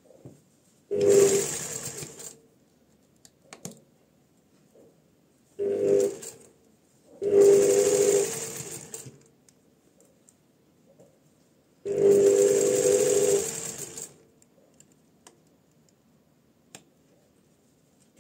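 Electric sewing machine stitching in four short runs with pauses between. It is sewing a line down the middle of an invisible zipper's tape to fix it to the trouser seam allowance.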